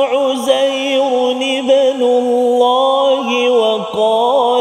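A man reciting the Quran in melodic tarannum in the Jiharkah maqam, holding long ornamented notes with brief breaks between phrases.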